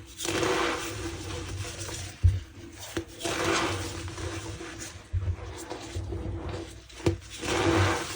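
Reformed gym chalk being squeezed and crushed by hand, giving squeaky, crunching swells about every three to four seconds, with a few sharp knocks in between.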